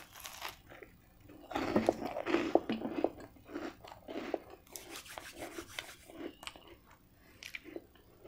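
Close-miked crunching and chewing of a mouthful of heavily toasted garlic bread: dense crisp crackles through the middle, thinning out near the end.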